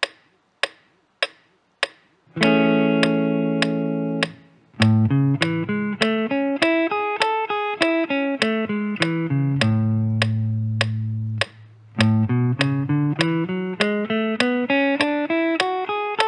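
Clean semi-hollow electric guitar working through A major 7 over a metronome ticking at 100 BPM. Four ticks count in, then a chord rings for about two seconds, followed by single arpeggio notes going up and down. A low note is held, and a scale climbs near the end, with the ticks keeping time under it all.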